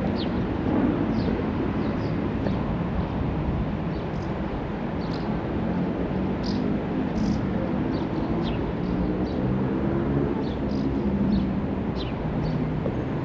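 Outdoor ambience: a steady low rumble, with short high chirps of small birds scattered throughout.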